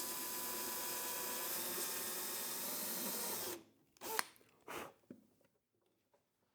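Electric drill running steadily for about three and a half seconds while drilling the holes that fasten a wheel pant to the landing gear, then stopping abruptly. Two short bursts follow about a second later.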